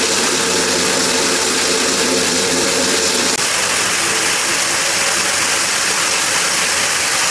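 HMC 500 electric core drill running under load, its 500 mm diamond core bit cutting reinforced concrete near the end of the cut. The motor's hum weakens about three and a half seconds in, while a steady rushing noise carries on.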